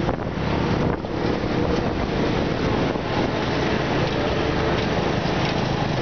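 Motorcycle engines running steadily on the move, mixed with heavy wind rushing over the microphone.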